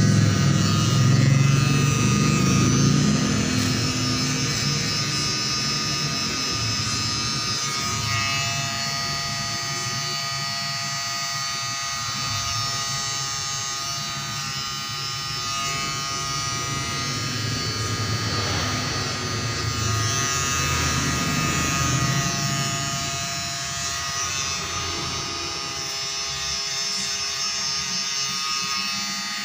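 Wahl Finale foil shaver buzzing steadily as it is run over the skin of the neck and behind the ear. It is louder for the first few seconds.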